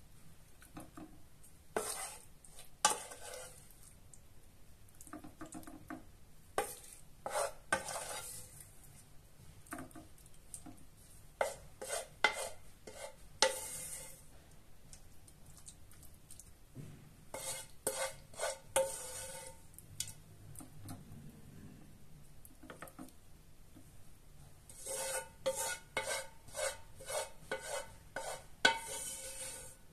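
A serving spoon scraping and clinking against a cooking pot as creamy chicken and mushroom sauce is dished out onto plates of rice. The clinks and scrapes come in several short clusters with quieter gaps between.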